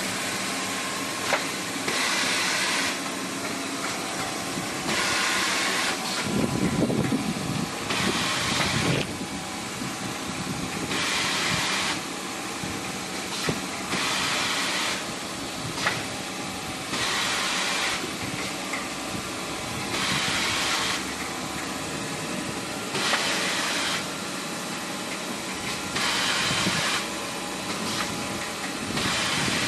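Automatic band saw tissue-roll cutting machine running: a steady machine hum with a hissing burst about once every three seconds, each lasting about a second, as the blade cuts through the paper log.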